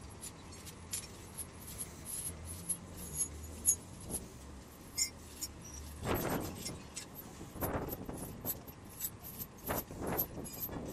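Crane unloading sugarcane from a truck: a steady low engine hum under scattered light metallic clicks and clinks, with a few short bursts of rustling noise about six, eight and ten seconds in.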